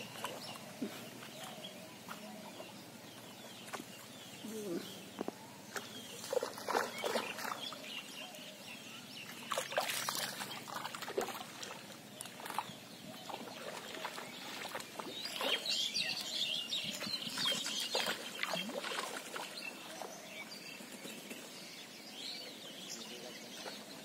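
Quiet rural outdoor ambience with intermittent calls of farmyard fowl and a few short clicks and splash-like sounds, busiest around the middle.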